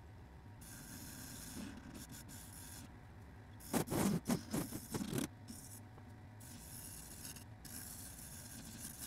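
Turning tool cutting a spinning sapele blank on a wood lathe: a run of loud scraping cuts about four to five seconds in, with lighter hissing cuts before and after.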